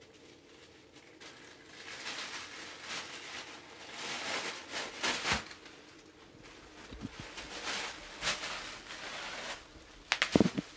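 Tissue paper being crumpled and shaken by a baby's hands, in uneven crinkling bursts. A short, louder burst comes near the end.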